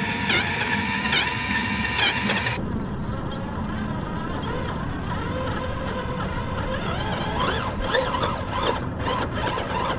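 Electric motor and gear drivetrain of a 1/10-scale RC4WD Ford Raptor scale truck whining as it crawls over loose gravel, the pitch rising and falling with the throttle. The sound changes abruptly about a quarter of the way in, at an edit.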